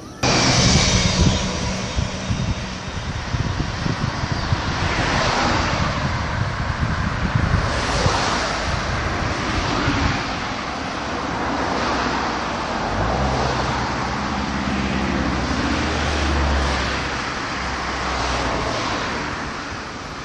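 Road and wind noise from a moving car, with the engine's hum underneath. The sound cuts in abruptly, and a deeper engine drone joins about two-thirds of the way through before fading.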